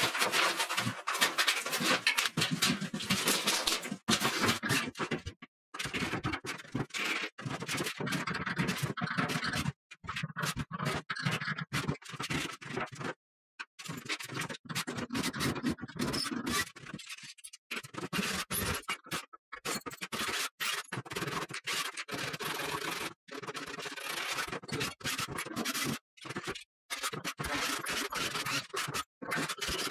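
Scraping and scratching of hand demolition work: a stretch-ceiling film being pulled from its wall track, then a built-in cupboard being taken apart. It comes in short snippets that break off abruptly again and again.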